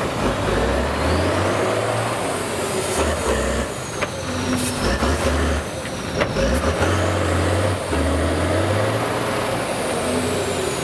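Tatra trial truck's diesel engine revving hard under heavy load as it climbs out of a dirt mound, the engine note swelling and dropping several times. A few sharp knocks come through, around the middle.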